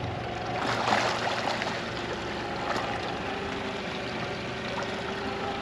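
Boat engine running at low speed just after being started, with water gurgling and splashing along the hull as the boat pulls away. A brief surge of water noise comes about a second in.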